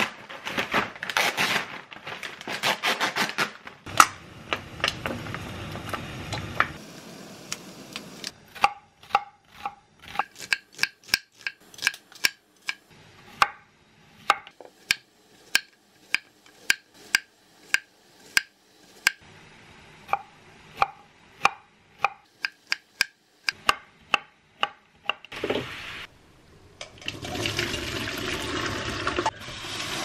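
Kitchen knife slicing a Korean zucchini on a wooden cutting board in a long run of crisp, even strokes, about two a second. Near the start a plastic food pouch is torn open and crinkled, and near the end tap water runs into a steel sink.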